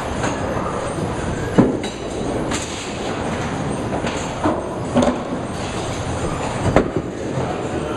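Duckpin bowling alley din: a steady rumble of balls rolling on wooden lanes and pinsetter machinery, with sharp clacks of pins being struck about a second and a half in, twice around five seconds, and again near seven seconds.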